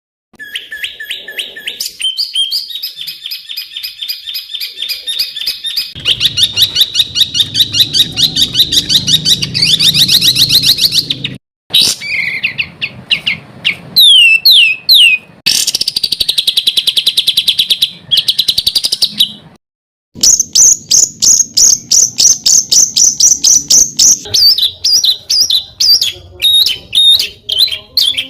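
A songbird singing loud, rapid runs of close-set, harsh repeated notes (the 'tembakan rapat dan kasar' style used as tutor song), mixed with trills and a few sweeping whistles. The song breaks off briefly twice, about a third and two thirds of the way through.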